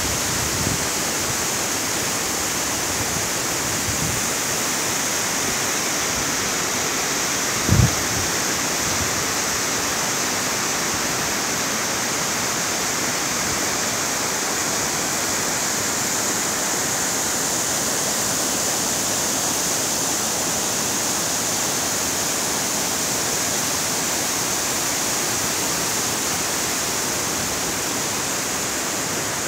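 Steady rush of river water pouring over a weir. One brief low thump about eight seconds in.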